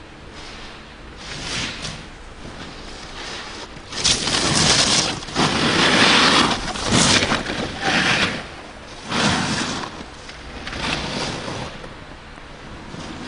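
Snowboard sliding over packed snow, its edges scraping with a hiss that swells into several loud surges in the middle as it turns, then settles back to a lighter hiss.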